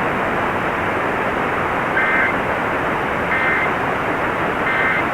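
Three short two-tone electronic data bursts, each about a third of a second and about 1.4 s apart, over steady radio hiss and static: the Emergency Alert System's end-of-message code, marking the end of the severe thunderstorm warning broadcast.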